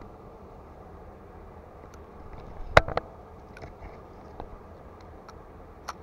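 Handling of a spinning rod and reel: a sharp double click about three seconds in, a few fainter ticks after it and one more click near the end, over steady low background noise.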